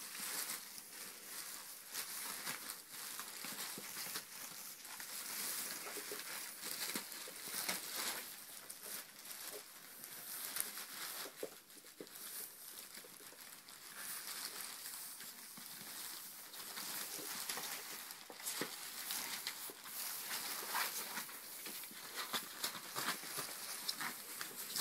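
Clear plastic sheet crinkling and rustling as ferrets scrabble on and under it, with irregular small clicks and patter across the wooden floor.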